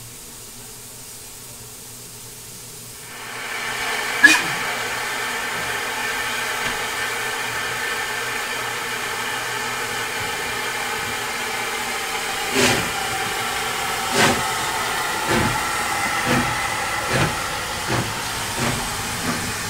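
Steam locomotives, LNWR Coal Tank No. 1054 with LMS Jubilee 45596, starting away. A loud steady hiss of escaping steam sets in about three seconds in, with a sharp knock just after. About halfway through, slow exhaust chuffs begin, about eight of them, and they quicken as the train gets moving.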